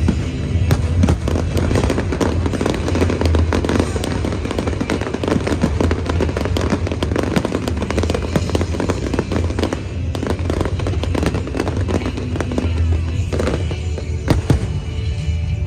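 Aerial fireworks bursting and crackling in rapid succession, over loud music with a steady bass from the show's sound system.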